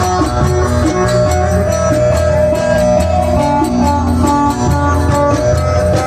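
Instrumental passage of Turkish folk music between sung verses: a plucked string melody over a pulsing bass, with light percussion clicks.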